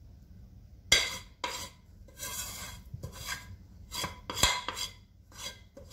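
Big metal spoon scraping and clanking against the inside of a steel pot as thick date-roll candy is dipped out. It comes as a run of short scrapes, with a sharp knock about a second in and another around four and a half seconds in.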